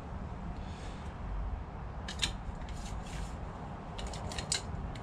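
Light metal clicks and scrapes from a Stihl HLA 65 long-reach hedge trimmer's angle-adjuster pull-down handle and cable being worked by hand, in a few short clusters starting about two seconds in.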